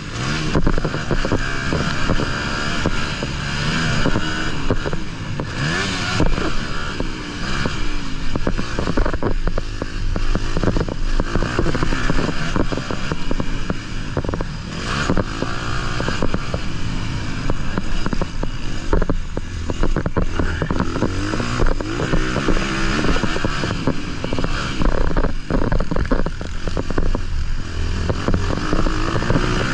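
Onboard sound of a Honda 250 motocross bike's engine revving up and falling back again and again as it is ridden hard around a dirt track, with wind noise on the microphone.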